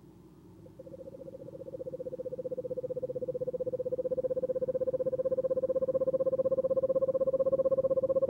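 Eastern screech owl giving its long monotone trill: a rapid, even run of notes on one pitch that starts about a second in and swells louder over the next few seconds, then holds steady.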